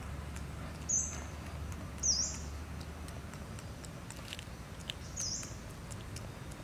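Three short, high-pitched animal chirps, each a quick dip and rise in pitch, about a second in, two seconds in and near five seconds, over a low steady hum.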